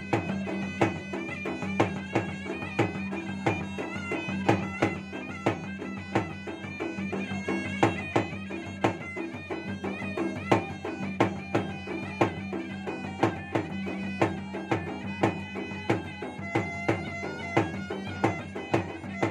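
Makassarese gendang ensemble playing: two double-headed gendang drums beaten by hand and stick in quick, dense strokes, under a continuous shrill melody from a pui-pui reed pipe.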